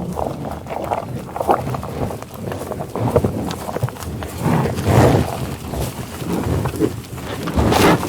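Cows mooing, with louder calls about five seconds in and near the end, over a steady run of short knocks and shuffling.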